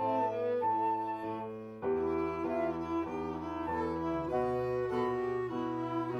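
Instrumental classical music: a flute melody over bowed strings, violin and cello, with notes changing about every half second. About two seconds in, a new, lower chord comes in after a brief dip in loudness.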